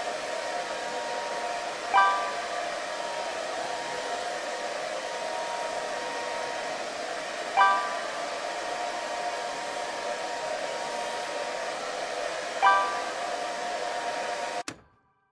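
Simulated hair dryer blowing steadily, with three short chimes about five seconds apart; the dryer cuts off abruptly near the end.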